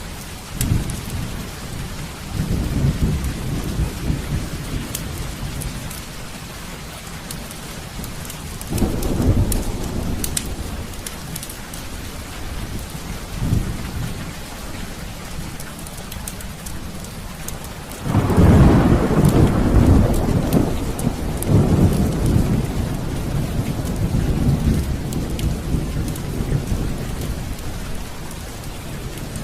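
Heavy rain falling steadily, with rolling thunder rumbling several times. The loudest and longest peal breaks about eighteen seconds in and rumbles on for several seconds.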